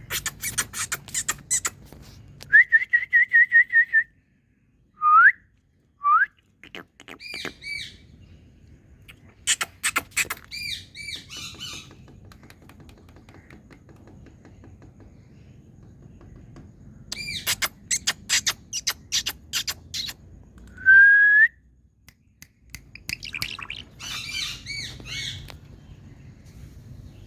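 Indian ringneck parrot calling: bursts of rapid sharp clicking chirps and squawks, a warbling trilled whistle, and a few short rising whistles.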